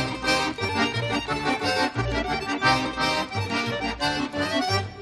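Upbeat accordion tune over a steady bouncing bass beat: cartoon background music.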